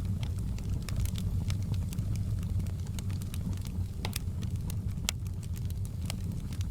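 Wood fire burning in a fireplace: irregular sharp crackles and pops over a steady low rumble, with a couple of louder pops around four and five seconds in.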